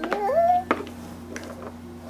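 A toddler's short rising whine that wavers and climbs in pitch for about half a second, followed by a single sharp tap.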